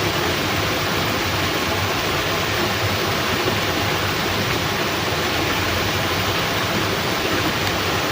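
Steady rushing water: heavy rain together with water pouring through a fishpond sluice gate, an even, unbroken hiss.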